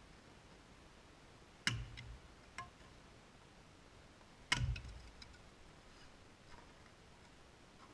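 Axe splitting firewood on a chopping block: two sharp chops about three seconds apart, each a thud with a crack, followed by a few lighter knocks.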